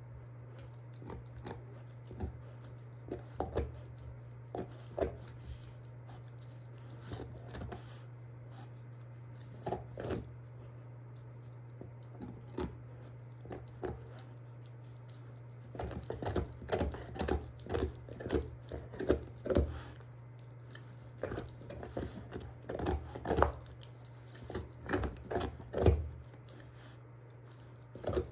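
A German shorthaired pointer gnawing and crunching on a beef bone. The crunches are scattered at first, then come as a fast run of louder bites from about halfway through.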